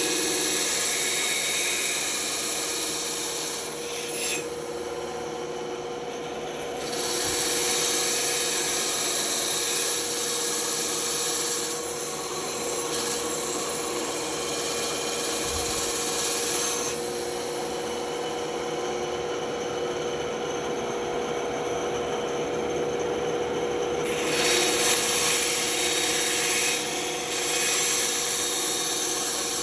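Band saw running with a steady hum while its blade cuts through wood. The cutting noise swells and eases in stretches of a few seconds as the work is fed through.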